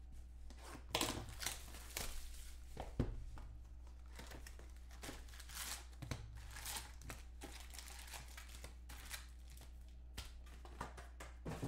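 Foil trading-card pack wrappers crinkling and a cardboard hobby box being handled as a box of 2015 Topps Platinum football cards is opened and its packs are pulled out, in many small irregular crackles with a light knock about three seconds in. A low steady hum runs underneath.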